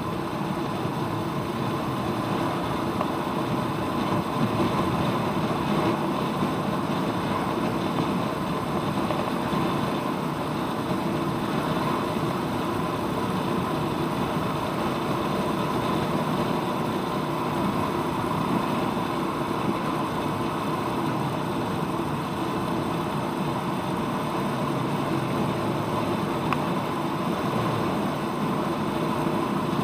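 Royal Enfield Meteor 350's single-cylinder engine running steadily as the motorcycle is ridden.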